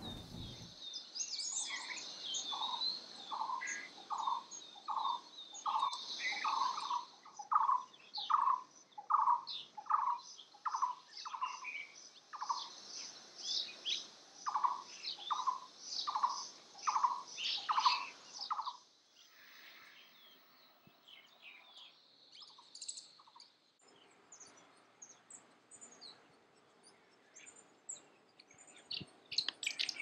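Blue-throated barbet calling a long series of repeated low, hollow notes, about two a second, which stop about two-thirds of the way through. Smaller birds chirp higher above it, and only their faint, scattered chirps remain near the end.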